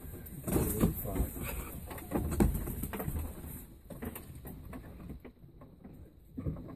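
Backyard hens clucking softly, with rustling and light knocks in the coop's wood-chip bedding. The sounds are busiest in the first three seconds and thin out after that.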